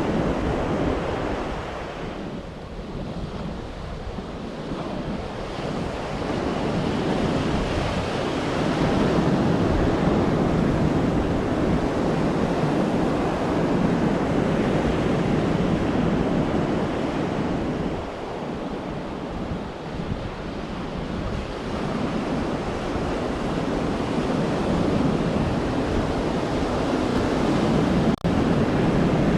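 Sea surf washing onto a beach, the wave noise swelling and easing in slow surges, with wind rumbling on the microphone.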